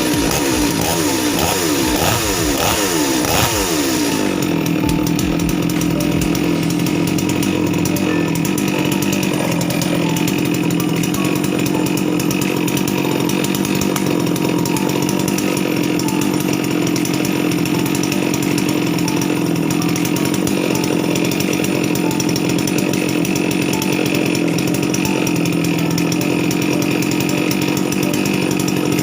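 Falcon FC 6800 two-stroke chainsaw engine running in on a fresh 1:20 oil-fuel mix. Its revs drop over the first few seconds, then it runs at a steady speed.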